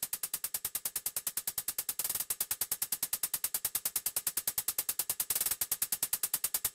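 Programmed trap hi-hats playing on their own: a steady run of short hits about nine a second, broken twice by quicker rolls, about two seconds in and again about five and a half seconds in.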